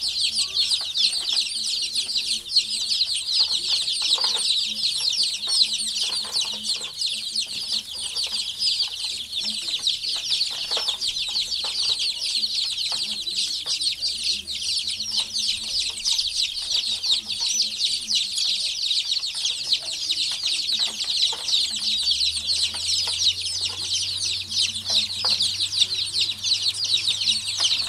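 A brooder full of baby chicks peeping, many high, short chirps overlapping in a steady, loud chorus; the chicks are in a frenzy after being fed Japanese beetles.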